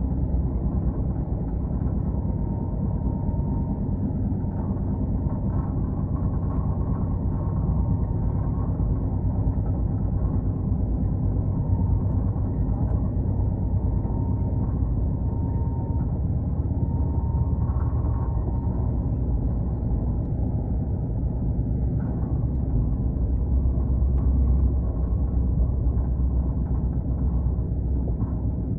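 Indian Railways train in motion: a steady low rumble that runs on without a break.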